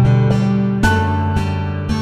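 Soft instrumental background music with acoustic guitar chords; a new chord strikes at the start and another just under a second in.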